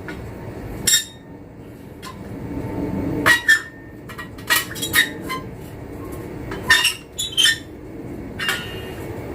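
Galvanized iron sheet being handled and worked by hand: about ten sharp, irregular metallic knocks and clinks, some ringing briefly, as the stiff, bent piece is pushed and shifted.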